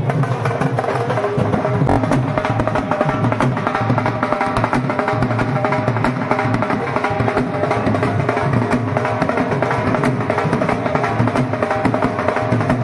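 Procession band's dhol drums, two-headed barrel drums beaten fast with sticks in a continuous rhythm, with a tune over them.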